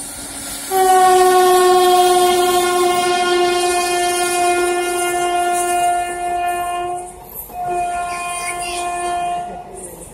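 Train horn sounding two long blasts: the first starts just under a second in and lasts about six seconds, the second follows after a short break and lasts about two. Underneath runs the noise of a passenger train passing at speed, its wheels clattering over the rails.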